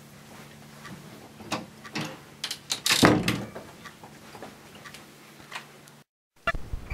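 Footsteps and knocks as people walk past through a doorway over a low steady hum, with one loud thump about three seconds in. The sound drops out completely for a moment near the end.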